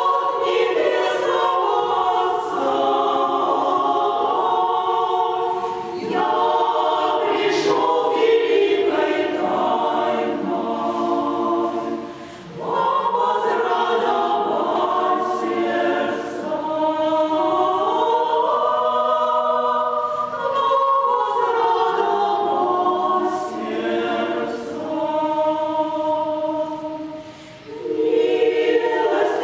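Women's choir singing sacred music a cappella in several parts, in long held phrases. There are short breaths between phrases about twelve seconds in and again near the end.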